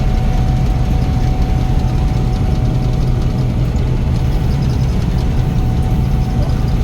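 Gleaner N6 combine running steadily while harvesting wheat: a loud, even low drone with a thin steady whine above it.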